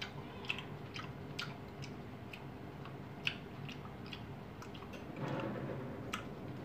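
Light, irregular clicks of a metal spoon against a small ceramic bowl, with soft chewing of raw salmon. A brief stretch of louder, rustly noise comes about five seconds in.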